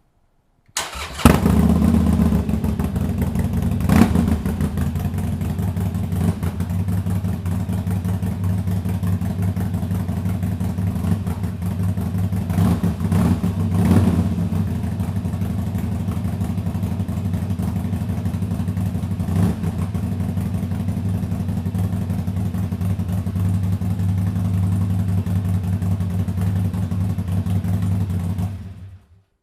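Harley-Davidson Forty-Eight's 1200 cc V-twin starting about a second in and idling with a low, lumpy note through newly fitted Motea aftermarket mufflers, with a few brief throttle blips, then switched off near the end.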